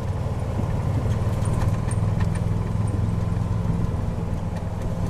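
Golf cart driving along a road, heard from on board: a steady low drone from its drivetrain, with a few light rattles.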